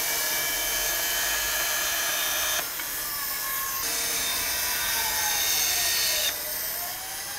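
Band saw running and cutting through a wooden board, a steady whir with the hiss of the blade in the wood. The cutting noise drops sharply about two and a half seconds in, comes back, and drops again near the end.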